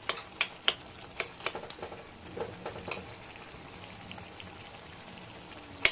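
Steel spoon clinking and scraping against a kadai while stirring a thick potato, banana-stem and black-lentil sabzi, over a low sizzle. The clinks come a few times a second for about the first three seconds, then mostly the sizzle, with one sharp clink near the end. The sabzi is cooked through and its last water is being dried off.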